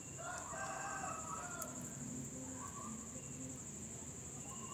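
A rooster crowing faintly, one drawn-out call in the first second and a half, over a steady high-pitched whine.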